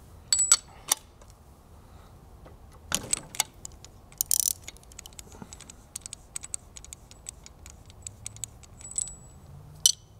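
Metal clinks and knocks from a spark plug socket and extension being fitted and turned on a spark plug in a Rotax 582 two-stroke's cylinder head, followed by a run of quick light ticks in the second half as the plug is worked loose.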